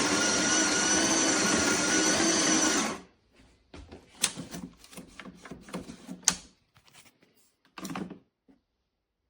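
De'Longhi La Specialista Arte Evo espresso machine running with a loud, steady mechanical whir that cuts off suddenly about three seconds in, followed by scattered light clicks and knocks.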